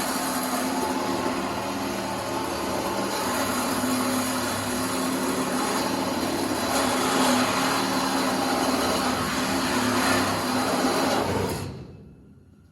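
A handheld power tool running steadily on metal, a wide hiss over a steady motor hum, then switched off near the end.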